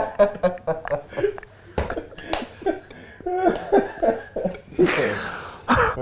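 Several men laughing in short, broken bursts with breathy exhalations, the loudest breathy burst coming just before the end.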